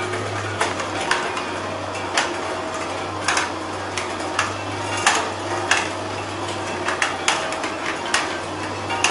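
Electric almond shell separator running with a steady low hum, while cracked almonds and shell pieces clatter irregularly against its metal chute, a sharp click every second or so.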